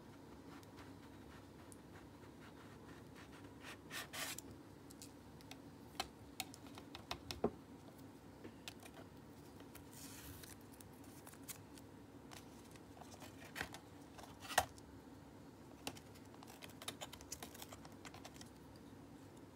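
Faint handling sounds of a thin metal solder-paste stencil, a putty knife and circuit boards: scattered light clicks and taps, and a short scrape about four seconds in. A brief hiss of masking tape being peeled off comes about ten seconds in, and the loudest, sharp click comes near fifteen seconds.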